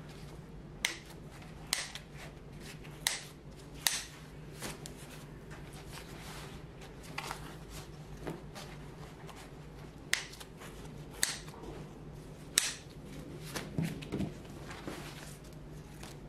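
Kitchen scissors snipping through a stack of dry lavash flatbread, about a dozen sharp crisp cuts coming in irregular runs with short pauses between.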